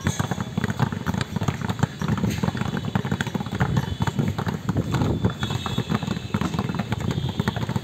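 Many basketballs being dribbled at once, a dense, uneven run of overlapping bounces on a hard court.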